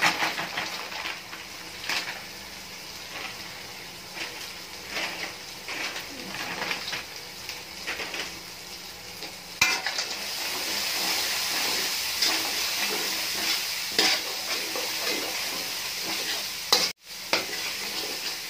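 Soya chunks frying in masala in a metal karahi, sizzling, while a slotted metal turner stirs them, clicking and scraping against the pan. About ten seconds in the sizzle becomes steadier and louder.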